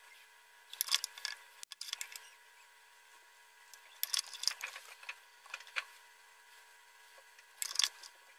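Handling noises: three short clusters of clicks and rustles, about a second in, from about four to six seconds, and near the end, over a faint steady hum.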